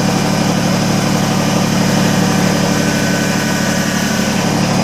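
Kubota BX25D compact tractor's three-cylinder diesel engine running steadily at idle.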